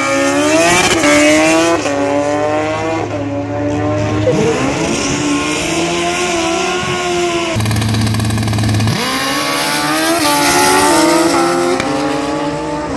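Drag racing cars launching and accelerating hard down the strip, engines climbing in pitch and dropping back at each gear change; a new run begins about nine seconds in.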